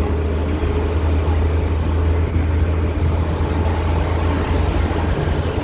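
Steady road noise inside a car's cabin on a freeway: a constant low rumble from the tyres and engine with an even hiss over it.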